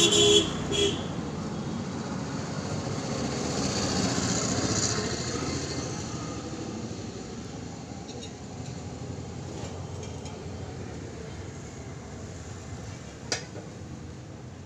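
Traffic noise from passing road vehicles: a broad hiss that swells about four seconds in and slowly fades. A short pitched tone sounds at the very start, and there is one sharp click near the end.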